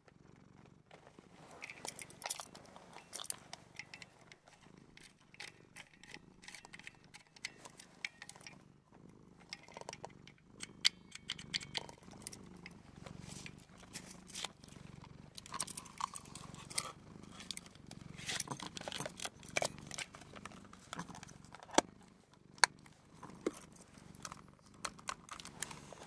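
Close-miked handling of a small vintage camera accessory: irregular clicks, taps and light rustles as it is turned and fiddled with, over a faint low hum.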